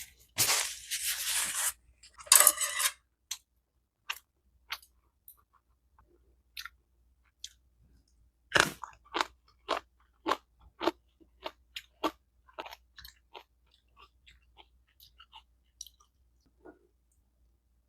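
A person eating close to the microphone: two loud crunchy bites in the first three seconds, then scattered chewing clicks that turn into a quick run of chewing, about two or three a second, midway, and thin out toward the end.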